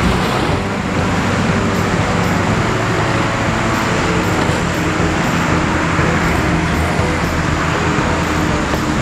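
A 2010 Jeep Wrangler JK driving slowly through a muddy track, its engine running steadily under a constant rushing noise.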